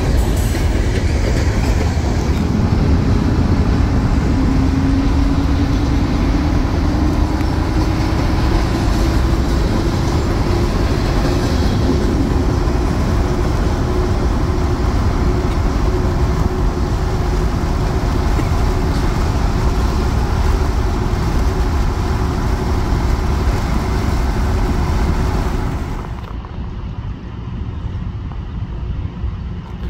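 Car engine and road noise heard from inside a moving car, the engine tone rising slowly as the car speeds up and then holding steady while it paces a passing freight train. About 26 s in, this cuts off to quieter, duller outdoor sound as a train approaches in the distance.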